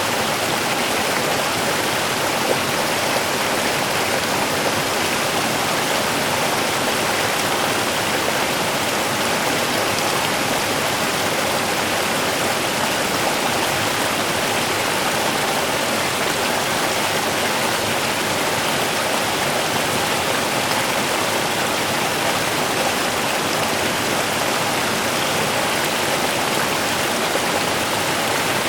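A small river running: steady rushing and splashing of water flowing over stones.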